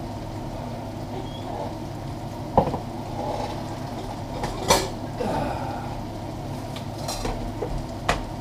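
A few sharp clinks and knocks of kitchenware and utensils being handled, the loudest about halfway through. Under them runs the steady sound of beef cooking in a steaming stockpot.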